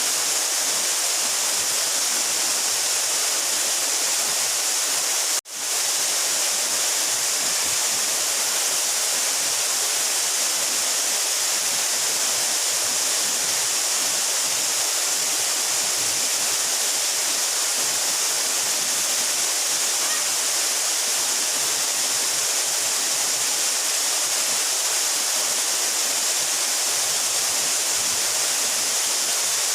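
A 12-metre mountain waterfall pouring, a steady rushing hiss of falling water. It cuts out for an instant about five seconds in.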